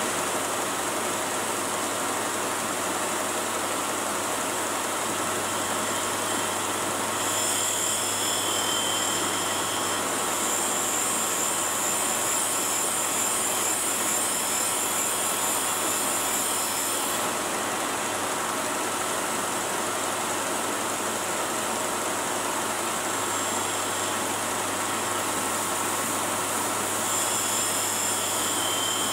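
Cylindrical grinder running steadily, its wheel grinding the bearing diameter of a threaded steel spindle under flowing coolant, over a low motor hum. A louder high hiss comes in from about seven to seventeen seconds in, and again near the end, when the wheel is cutting and throwing sparks.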